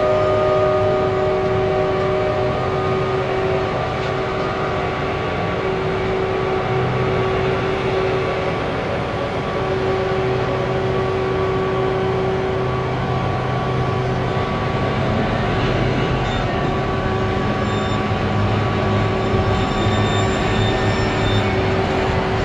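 A heavy machine's diesel engine running steadily under load, a deep rumble with a steady whine over it.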